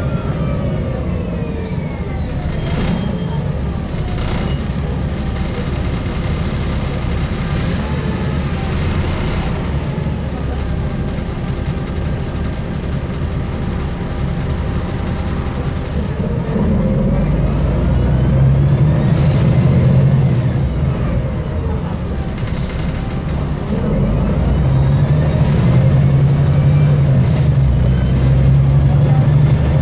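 Volvo 7700A articulated city bus heard from inside while riding. Its Volvo D7C six-cylinder diesel runs steadily under a whining Voith automatic gearbox. The whine falls in pitch at the start, then rises twice, about halfway and again near the end, as the engine grows louder with the bus accelerating.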